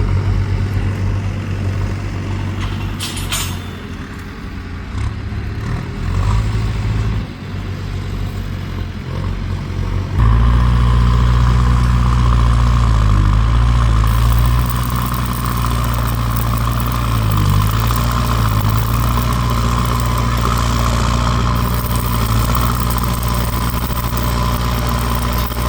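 Motor vehicle engine running steadily, louder from about ten seconds in.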